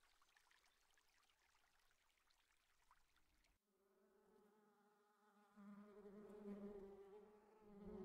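Faint outdoor hiss, then from about three and a half seconds in, wasps buzzing at the entrance hole of their underground nest: a steady low hum that grows louder in the second half.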